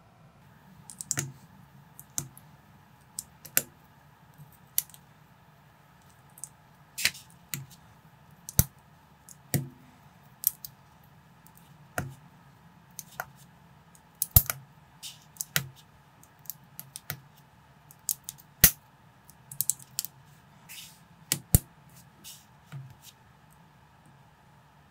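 Small plastic building bricks being handled and pressed together: irregular sharp clicks and taps, about one or two a second, starting about a second in.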